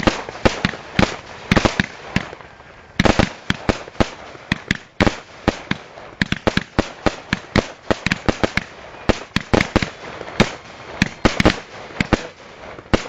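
Fireworks going off at close range at the firing position: a rapid, irregular string of sharp bangs and cracks, several a second, with a short lull about two seconds in.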